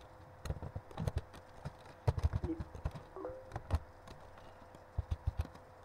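Computer keyboard being typed on: irregular key clicks in quick runs, over a faint steady hum.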